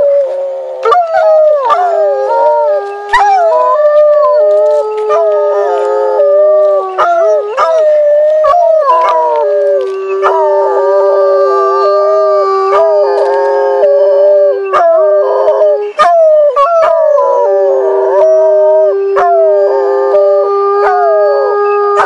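Two wolf-like canines howling together in overlapping long, held notes. One voice stays steady and lower while the other slides and wavers in pitch above it.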